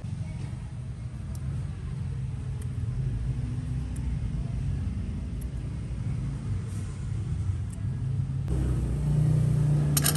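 Low, uneven outdoor rumble that swells louder near the end, with a few faint clicks.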